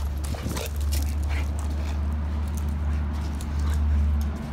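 Dogs sniffing and scuffling on gravel as they meet on leashes, with a few short scuffs in the first second, over a steady low rumble.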